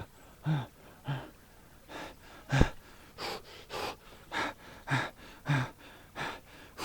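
A man gasping and panting in short, shuddering breaths, about one and a half a second, some with a voiced grunt, from the shock of icy stream water on his bare legs. A single sharp knock comes about two and a half seconds in.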